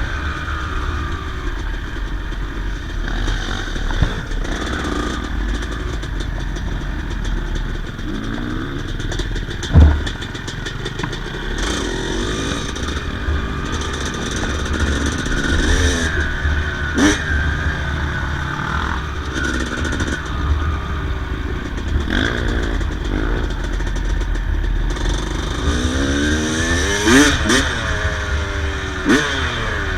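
Yamaha YZ250 single-cylinder two-stroke dirt bike engine under way, its revs rising and falling again and again as the rider works the throttle. A few sharp knocks come through, the loudest about ten seconds in.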